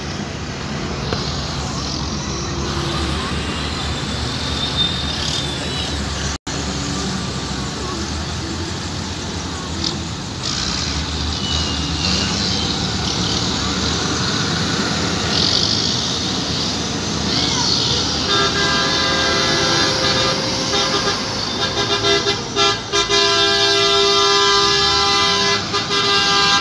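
Tractor diesel engines running as tractors drive slowly past, with crowd voices. About two-thirds of the way through a vehicle horn starts, held for a few seconds, then sounded in a string of short honks.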